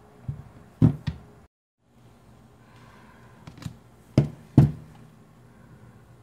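A rifle scope being handled and set down on a cutting mat, knocking against it: a few sharp knocks near the start and another group about three and a half to four and a half seconds in, the last two the loudest. A brief dead gap falls between the two groups.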